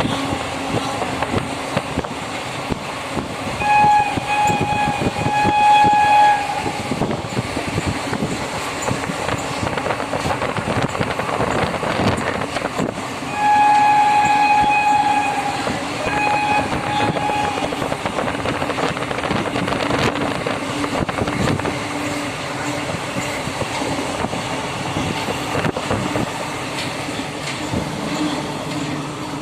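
Passenger train running along the track with a steady rumble and wheel clatter, its horn blowing in two spells of blasts, about four seconds in and again about thirteen seconds in.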